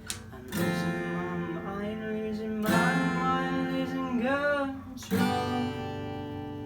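Acoustic guitar strumming chords, a fresh chord struck about every two seconds and left to ring, with a wordless sung line over it that bends and wavers about four seconds in.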